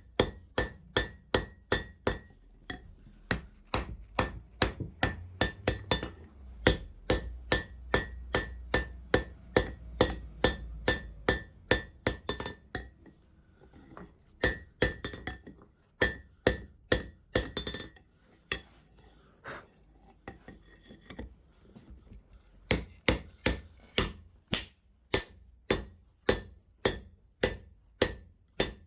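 Hammer blows on hot 25 mm square steel bar at the anvil, forging a 90-degree bend. They come in a steady run of about three strikes a second, each with a bright ring, with a couple of short pauses.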